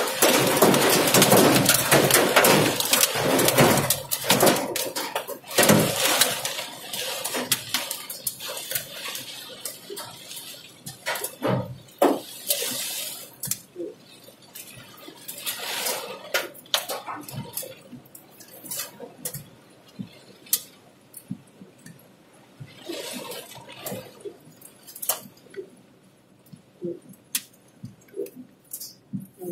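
Heavy rain pelting a car's roof and windshield, heard from inside the car. A dense clatter of drops eases off into scattered single hits.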